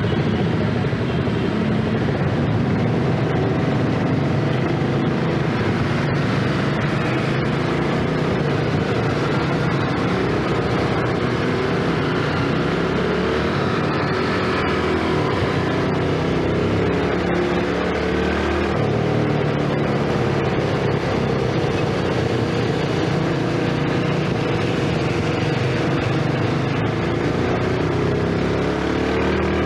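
Yamaha 115 cc single-cylinder motorcycle engine running while riding in traffic, its note rising and falling with the throttle.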